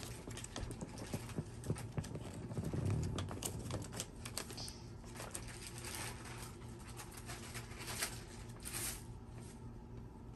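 Rustling and crinkling of a printed paper toy-packaging sheet being handled, with scattered small clicks and taps.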